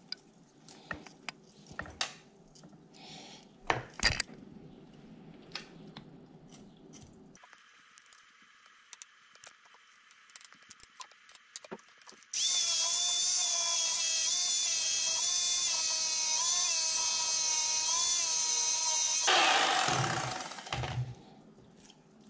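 Scattered small clicks and knocks, then an electric fillet knife runs for about seven seconds, its motor whine wavering in pitch as it cuts through a snakehead fish. A tap runs briefly near the end.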